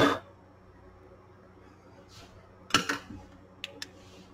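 A short loud noise at the start, then a handheld flashlight picked up and handled over the receiver chassis: a brief clatter about three seconds in, followed by two sharp clicks.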